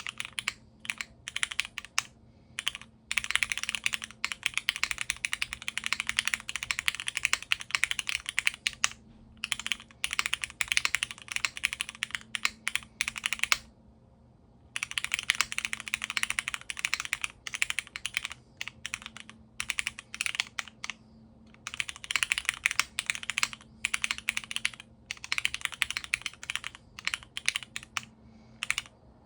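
Typing on a custom mechanical keyboard: a Keycult No. 2 with a polycarbonate plate and lubed, filmed Cherry MX Black linear switches under GMK keycaps. Fast runs of key presses with brief pauses between them, and a longer pause near the middle.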